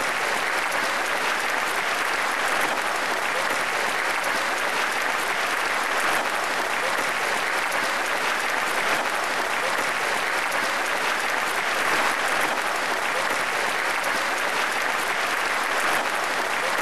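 Live audience applauding steadily, the dense clapping of many hands.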